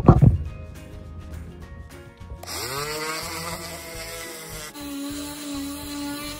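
A coping saw's short, even strokes trimming a glued-in dowel plug flush. About two and a half seconds in, a Bauer random orbital sander starts suddenly, its motor pitch rising as it spins up, then runs steadily sanding the wine-barrel staves.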